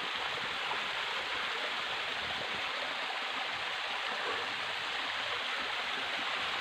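Small forest waterfall and rocky stream running, a steady even rush of water.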